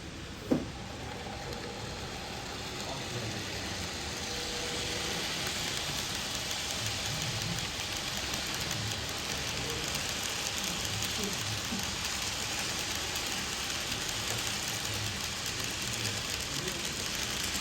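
N gauge model train running on the layout track: a rolling hiss that grows louder from about four seconds in and then holds steady, after one sharp click near the start.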